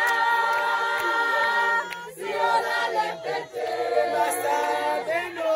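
A choir singing a cappella in sustained, held chords, with a brief break about two seconds in before the voices come back in on a new chord.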